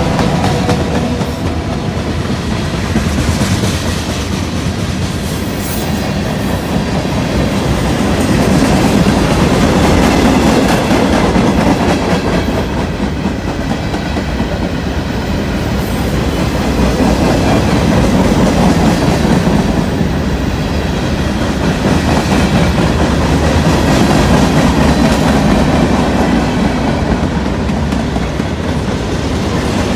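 Freight train rolling past, its cars' wheels clacking over the rail joints in a loud, steady rumble that swells and eases a few times.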